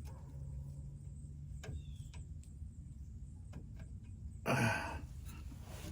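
A few faint, light metallic clicks and taps from small parts being handled while a shim is fitted on a linkage shaft, then an audible sigh about four and a half seconds in, over a low steady hum.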